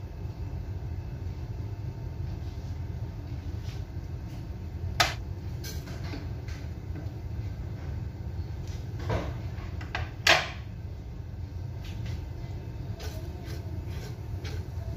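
Stovetop cooking in a nonstick frying pan on an electric induction-type cooktop: a steady low hum with a few sharp clicks and knocks. The loudest come about five seconds and about ten seconds in, as oil and cumin seeds go into the pan and are stirred with a spatula.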